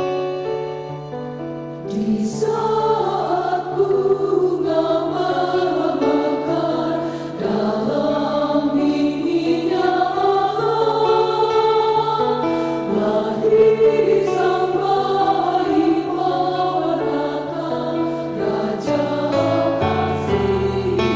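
Mixed choir of men's and women's voices singing a hymn in Indonesian over instrumental accompaniment. The voices come in about two seconds in over a held chord, with a steady low note under them.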